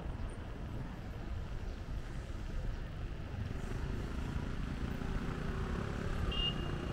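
Street traffic: a steady rumble of passing cars and motorcycles, with a brief high-pitched tone near the end.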